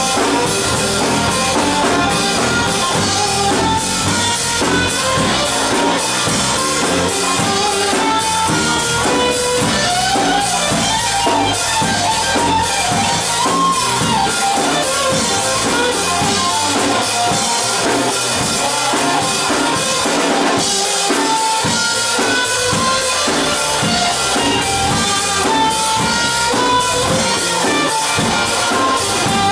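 A band playing a rock song: a drum kit keeping a steady beat, with guitar and a wavering melody line over it.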